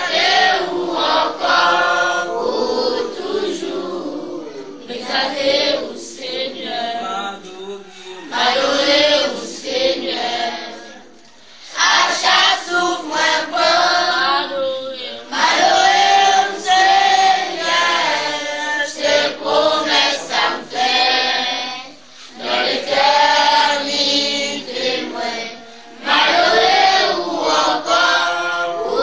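A choir of voices singing together in long phrases, with a few brief pauses between them.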